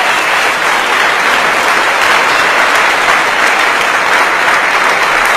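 Crowd applause: dense, steady clapping from many hands, loud throughout.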